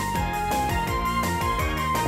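Instrumental background music with a steady beat and a melody of held notes.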